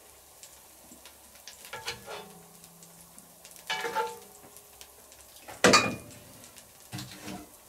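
A metal spoon stirring and scraping inside a cast-iron Dutch oven, while oil and vegetables sizzle quietly underneath. The scrapes come in four short strokes, the loudest about six seconds in.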